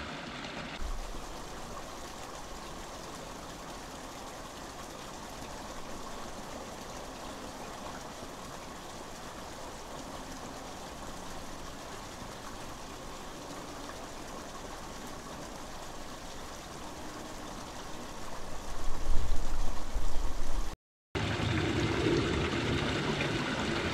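Steady, even rushing outdoor background noise with no distinct events. About eighteen seconds in a louder low rumble comes in and cuts off abruptly in a short dropout.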